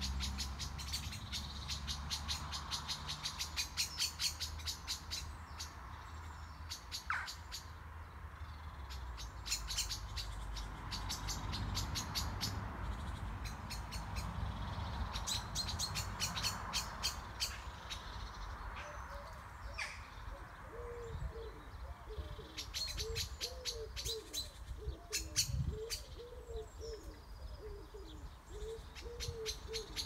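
Garden birds singing: bursts of rapid high-pitched trills and chirps. In the second half a low, cooing call repeats steadily underneath them.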